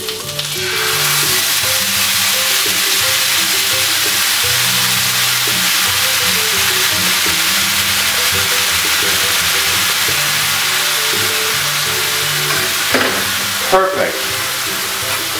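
Chili verde sauce poured into a hot cast iron skillet around a seared yellowtail fillet, sizzling hard: the sizzle swells up under a second in and then holds steady. Two sharp knocks sound near the end.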